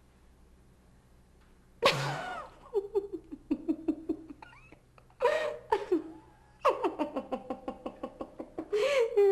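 A woman laughing hard, starting about two seconds in: bouts of quick, rhythmic ha-ha pulses, several times in a row.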